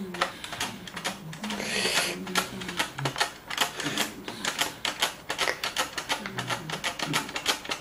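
Rapid, irregular plastic clicking and clacking as the parts of a Felix the Cat motion clock are handled and fitted together, several clicks a second.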